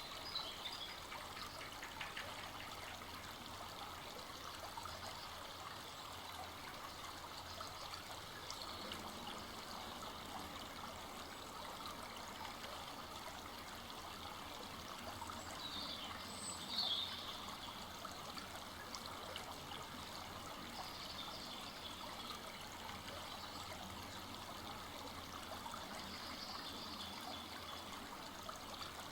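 Full-flowing forest stream running steadily, a continuous trickling and babbling of water.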